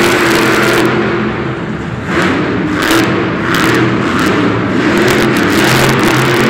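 Monster truck's supercharged V8 engine revving as the truck drives across the arena's dirt floor. From about two seconds in it comes in repeated throttle bursts.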